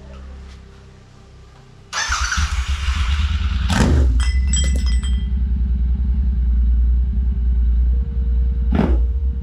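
Royal Enfield Continental GT 650's parallel-twin engine starting about two seconds in, then idling loud and deep through a Red Rooster Stellar exhaust with its dB killer removed. Two short sharp sounds stand out over the idle, about four seconds in and near the end.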